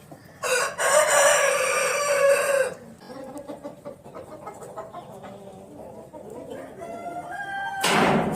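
A rooster crowing once, a loud call lasting about two seconds, followed by quieter clucking from chickens. A rising call and a loud sudden burst come near the end.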